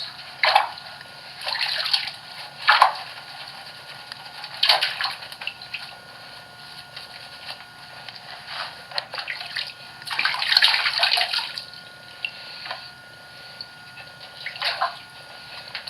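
Bath water splashing and sloshing in irregular bursts as a hen is lathered and washed by hand, with a longer stretch of splashing about ten seconds in.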